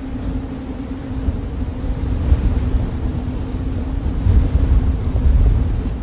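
Snowstorm wind: a steady low rumbling blow with a faint low hum in it, swelling in gusts a couple of times from about two seconds in.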